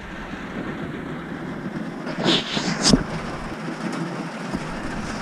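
Heavy rain drumming on a tractor cab's roof and windows, heard from inside the cab as a steady hiss. Two brief louder knocks or rustles come about two and three seconds in.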